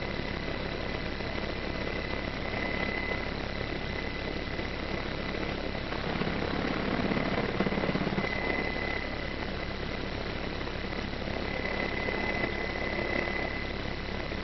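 MedEvac helicopter's rotor and turbine engines running, heard from on board: a steady high whine over a fast, even low beat, swelling a little around the middle.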